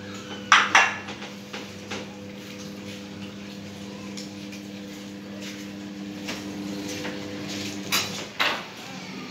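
Food bowls clinking against the tiled floor as they are set down among feeding cats: two sharp clinks about half a second in and two more near the end, over a steady low hum.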